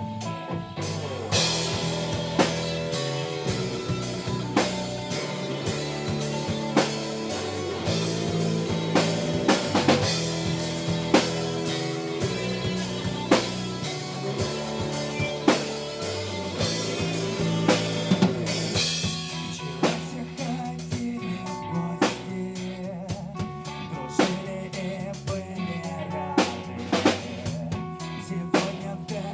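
Live rock band playing an instrumental passage with electric guitars, bass guitar and a drum kit keeping a steady beat, no vocals. The sound is full, with cymbals from about a second in, and thins out about two-thirds of the way through.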